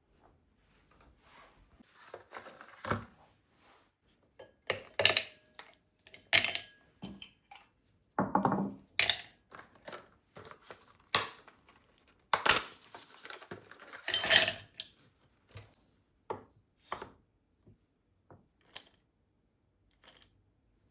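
Kitchen work sounds: a run of irregular knocks and clinks from dishes and utensils being handled, a few ringing briefly, busiest in the middle and thinning out near the end.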